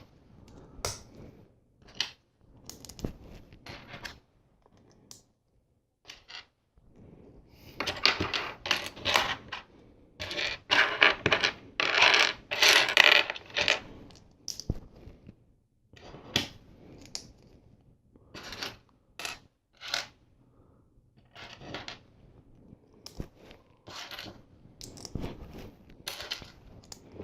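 Small plastic LEGO pieces clicking and clattering as plates, clip plates and jumper tiles are picked up and pressed together, in scattered clicks with a longer run of clatter about eight to fourteen seconds in.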